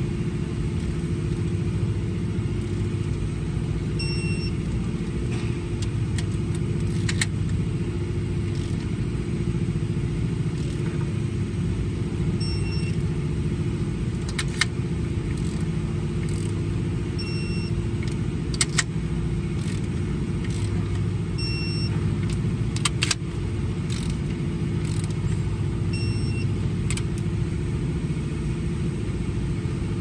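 Steady low machine rumble and hum, with scattered sharp clicks of tools and metal parts being handled on an opened-up engine head. A faint short beep repeats every four to five seconds.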